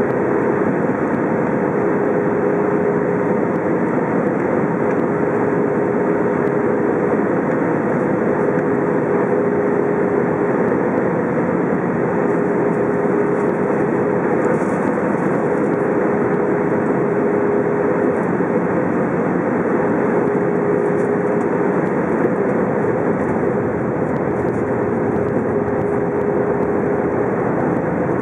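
Cabin noise of an Airbus A319 on its approach, heard from a seat over the wing: a steady rush of jet engine and airflow. A low steady tone rides on top and fades in and out every couple of seconds.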